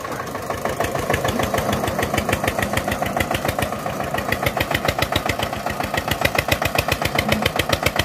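Old Eicher tractor's diesel engine chugging with an even, heavy beat. It works harder from about a second in, the beat growing louder and quicker, with a heavily loaded sugarcane trolley behind it.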